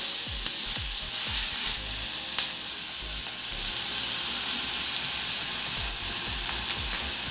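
Chopped onion and garlic sizzling in hot olive oil in an aluminium pot, stirred with a silicone spatula; the frying hiss is steady, with one light click a little over two seconds in.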